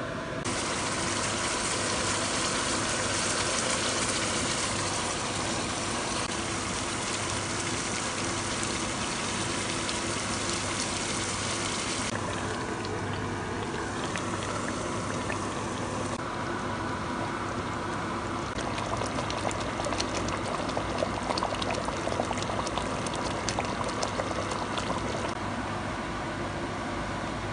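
Food cooking in a pot: a steady sizzling, bubbling hiss that changes sharply about twelve seconds in, with a run of small crackling pops in the later part.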